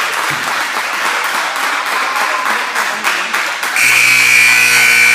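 Crowd noise and clapping in a school gym, then a little under four seconds in the gym's scoreboard buzzer sounds, a loud steady electronic buzz held to the end.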